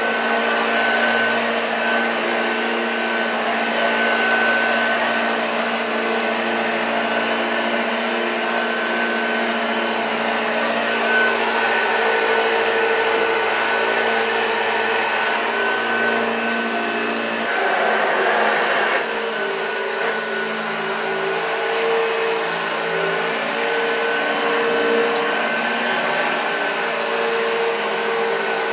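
1986 Hoover Junior U1206 upright vacuum cleaner running steadily, its motor giving a constant hum with several held tones. About two-thirds through, a short rush of noise comes and the hum's lowest part drops out, then it runs on with a slightly changed tone.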